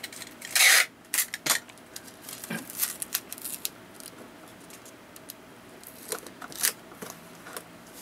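Clear adhesive tape being pulled off the roll and pressed and rubbed down over an acrylic sheet on a plastic crate. A loud rasp of tape comes about half a second in, then scattered short crackles and rubbing.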